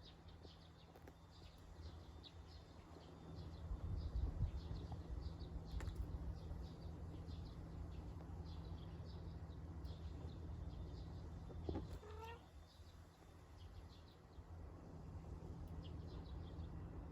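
A domestic cat gives one short meow about twelve seconds in, over faint birds chirping and a low outdoor rumble.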